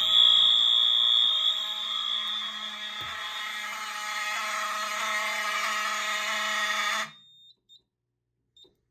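Wheelock 7002T and LSM fire alarm horn strobes sounding together in a continuous, steady blare with a strong high-pitched tone, then cutting off suddenly about seven seconds in. A faint thump comes about three seconds in.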